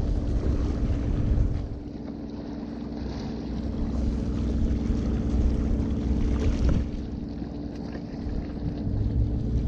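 Wind buffeting the microphone in uneven gusts, over the wash of small waves against jetty rocks, with a steady low hum underneath.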